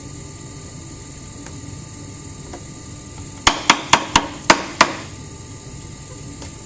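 Six sharp knocks in quick succession, about four a second, over the steady hum of a running electric pottery wheel.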